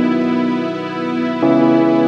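Slow, soft instrumental background music of held chords, changing chord about one and a half seconds in.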